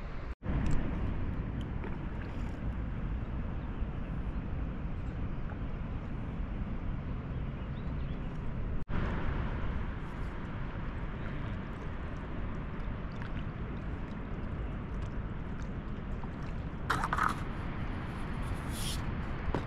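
Steady low rumbling outdoor noise that cuts out briefly twice, with two short hissing sounds near the end.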